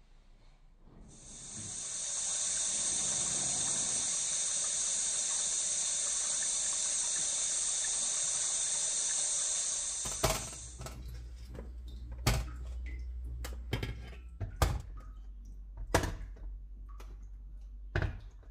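Tap water running in a steady stream over bell peppers in a stainless steel steamer basket, cutting off about ten seconds in. After that, about six sharp knocks and clacks over a low hum.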